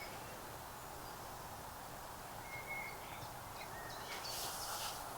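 Quiet outdoor background with a few faint bird chirps, the clearest about halfway through, and a brief high rustle about four seconds in.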